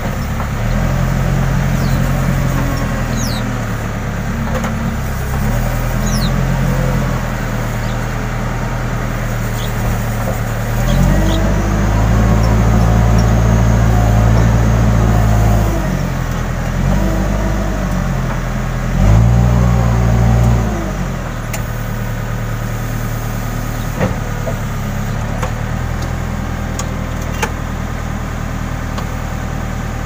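Case N Series backhoe loader's diesel engine running steadily. It swells twice under hydraulic load as the backhoe arm works, once for several seconds and again briefly, with a faint hydraulic whine rising and falling over it.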